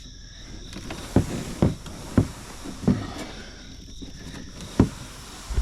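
About five dull knocks at uneven intervals, over a steady high-pitched trilling of insects.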